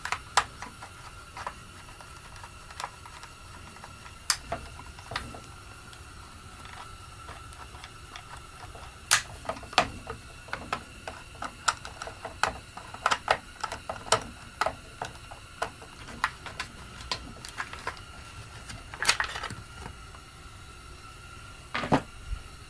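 Irregular light clicks and taps of hand tools and small metal parts as the carburetor is worked loose from a chainsaw, busiest in the middle stretch.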